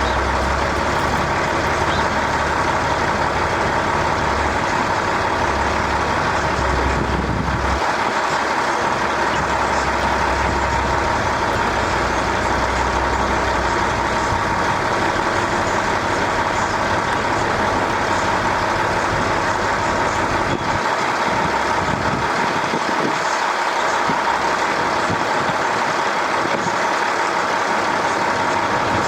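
Steady mechanical drone with a constant mid-pitched hum, with a low rumble underneath that fades out partway through.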